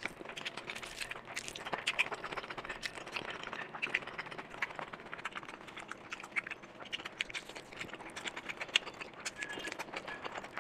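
Close-miked ASMR eating sounds: chewing and lip smacking with food eaten by hand, a steady run of small clicks and crackles.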